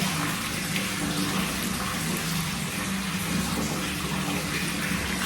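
Water running steadily from a tap for a bath, with a low steady hum underneath.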